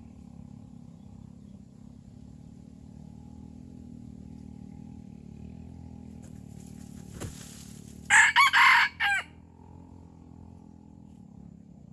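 Red junglefowl rooster crowing once, a short crow of about a second broken into a few notes, about eight seconds in.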